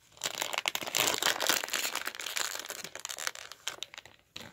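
Crinkling of a plastic Lego minifigure blind bag being handled and rummaged through for a missing part, a dense crackle that eases off near the end.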